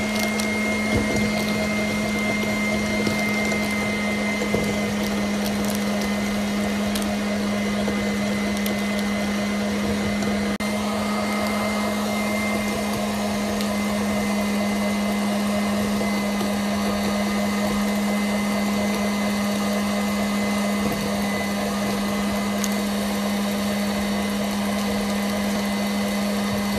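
Electric stand mixer running steadily, its wire balloon whisk beating butter into an egg yolk and sugar syrup mixture to make French buttercream (crème au beurre). The motor gives a constant hum with a strong low tone.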